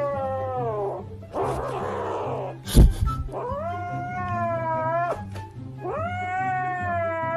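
A cat yowling in long drawn-out caterwauls, three calls that rise and then hold. Between the first two calls there is a short noisy stretch and a sharp thump. Background music plays underneath.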